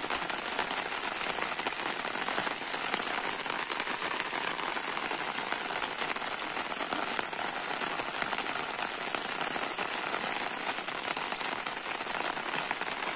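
Steady rain falling: an even hiss with a fine patter of drops, unchanging throughout.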